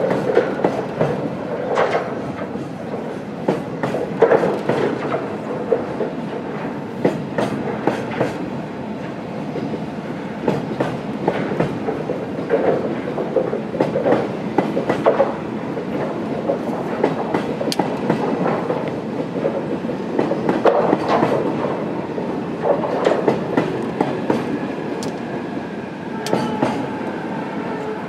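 A long-rail work train, flatcars loaded with long welded rails behind an EF65 electric locomotive, rolling through the station, its wheels clacking over rail joints with irregular knocks and clanks over a steady rumble.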